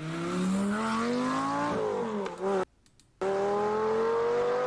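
High-performance car engine revving under acceleration: its pitch climbs for about two seconds and dips, cuts out for half a second, then climbs slowly again and falls away near the end.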